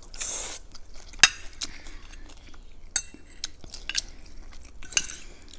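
Metal forks clinking and scraping against plates of food, with sharp ringing clinks a little over a second in, near three seconds and near five seconds, the first the loudest.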